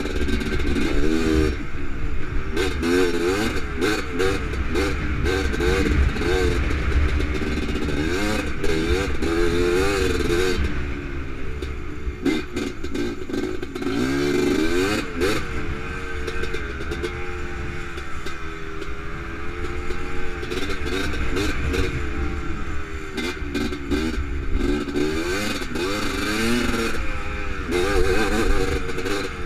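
Honda TRX 250R's two-stroke single-cylinder engine under a rider, revving up and falling back again and again, running more evenly for a stretch in the middle. Wind rumble on the helmet microphone and clatter over bumps run underneath.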